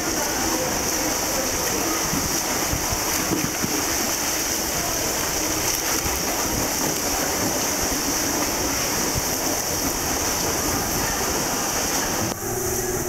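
Steady splashing and churning of several swimmers doing front crawl in an indoor pool, a continuous wash of water noise. It cuts off sharply near the end, giving way to a steady hum.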